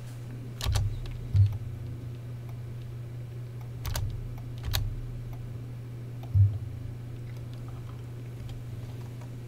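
A handful of separate clicks from a computer mouse and keyboard, a second or more apart, the loudest with a dull knock on the desk, over a steady low hum.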